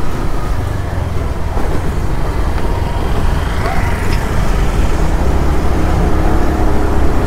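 A motor vehicle's engine running steadily with traffic noise around it while travelling along a road.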